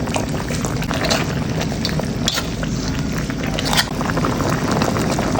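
Chicken simmering in a pan of soy-based adobo sauce, bubbling steadily with a few sharper pops, over a steady low hum.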